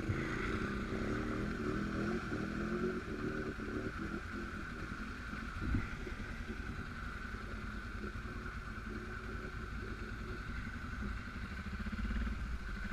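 A Suzuki King Quad 750 AXI's single-cylinder engine running while riding, its revs rising and falling over the first few seconds and then steadier, with a single knock about six seconds in.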